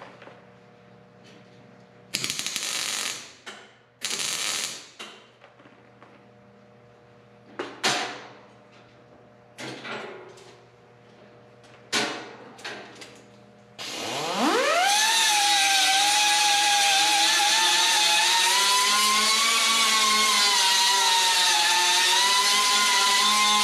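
A few short bursts and sharp knocks, then about 14 s in a handheld electric power tool spins up with a quickly rising whine and runs steadily, its pitch wavering slightly as it works the sheet-metal grill.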